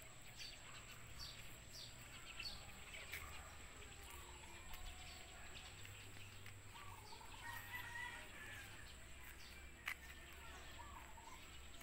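Faint outdoor ambience in which a rooster crows once, a drawn-out call in the middle, and small birds chirp at the start. A single sharp click comes near the end.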